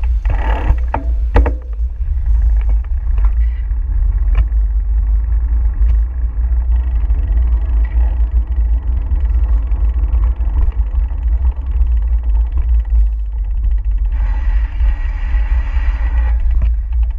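Wind rumbling on the microphone of a camera carried on a moving bicycle, with street car traffic passing, and a few knocks about a second in.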